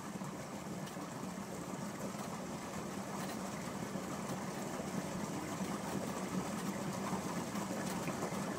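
Steady low hum of a small motor running, with an even background hiss.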